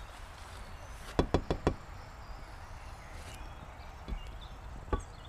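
Four quick knocks on a motorhome's side window, then one more knock near the end.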